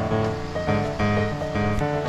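Background music: plucked, guitar-like instrumental notes over a steady accompaniment.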